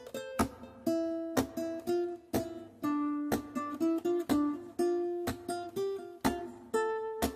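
Background music: acoustic guitar playing plucked notes and chords in a steady rhythm.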